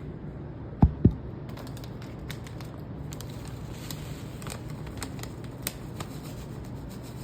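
Two dull knocks about a second in, then light, scattered clicking and rustling as dry mashed-potato mixture is added to a cup of water.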